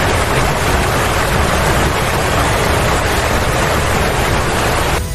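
Floodwater rushing across a street, a loud, steady rush of water that cuts off suddenly near the end.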